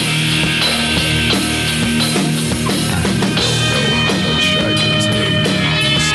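Loud rock music with a heavy beat and sharp cymbal hits in the second half.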